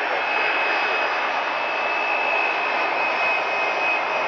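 Jet airliner's engines running as it taxis past close by: a steady rush with a thin high whine over it.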